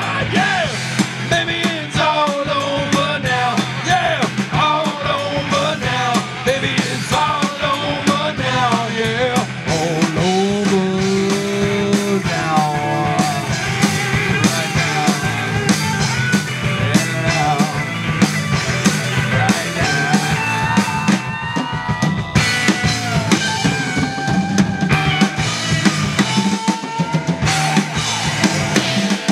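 Live rock band playing: electric guitars, bass guitar and a drum kit on a steady beat in an instrumental stretch, the lead line bending up and down in pitch.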